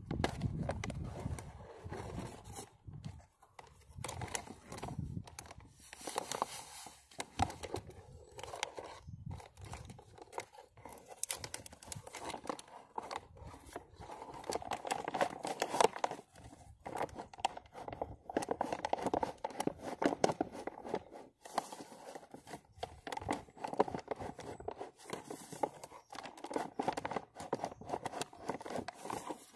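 A deer hide being tanned into buckskin, pulled back and forth over the edge of a plastic sawhorse to break it down and soften it: an irregular run of rubbing, scraping and crinkling noises.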